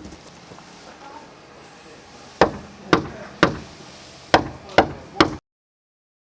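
Six sharp strikes in two groups of three, each about half a second apart, following a couple of seconds of faint background noise; the sound cuts off abruptly after the last strike.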